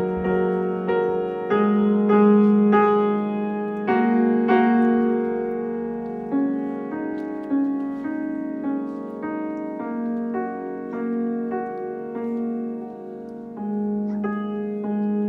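Grand piano played slowly and gently, notes struck about once or twice a second over sustained lower notes. It grows quieter through the middle and swells again near the end.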